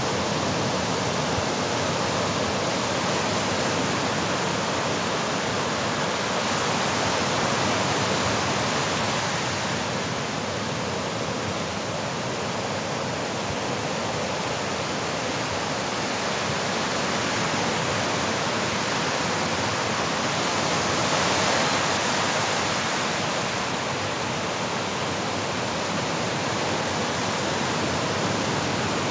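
Ocean surf breaking and washing into the shallows: a steady rushing wash that swells a little about a quarter of the way in and again about three-quarters through.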